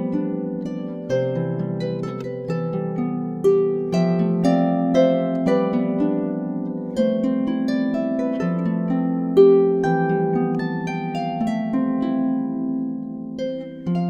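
Solo harp music on a Dusty Strings FH36S lever harp: plucked melody notes and broken chords over sustained bass notes, each note left to ring and fade.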